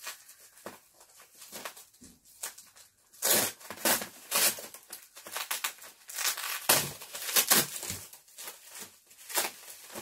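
Plastic bags crinkling and rustling in irregular bursts as packed groceries are handled in a styrofoam shipping box. It is loudest about three to four and a half seconds in and again around seven seconds in.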